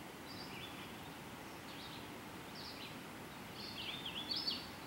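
Birds chirping in short, high calls, several in quick succession a little before the end, over a faint steady background hiss.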